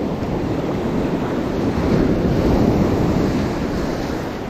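Surf washing around the feet in foamy white water, swelling a little about halfway through, with wind buffeting the microphone.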